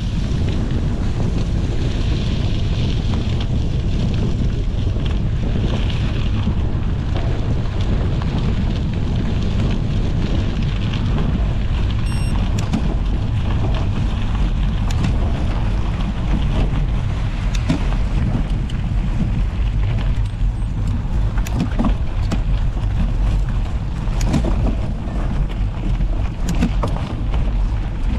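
Wind buffeting an action camera's microphone while riding a gravel bike, a steady low rumble. Scattered short clicks and rattles come in, mostly in the second half.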